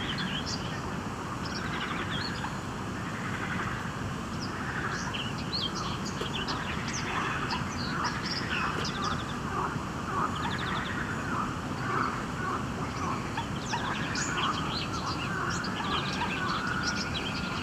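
Many small birds chirping and calling over one another, with short rapid trills scattered throughout, over a steady low background noise.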